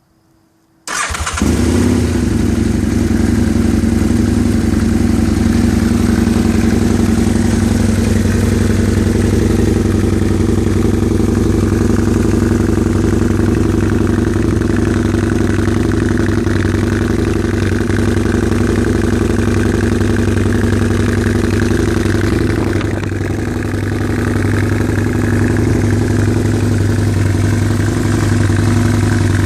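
Husqvarna Nuda 900 R's parallel-twin engine, with an aftermarket exhaust, started about a second in and then idling steadily, with a brief slight drop in level near the end.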